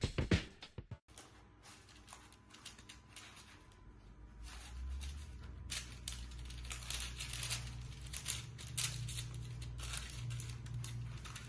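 Baking paper crinkling and rustling in irregular bursts as a sheet of puff pastry is unrolled and smoothed flat on it in a baking tray, over a low hum. The tail of a drum-backed music track cuts off about a second in.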